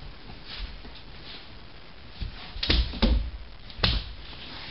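Three sharp thumps on a wooden floor as a big dog and a kitten play: two in quick succession just after halfway, then a third about a second later.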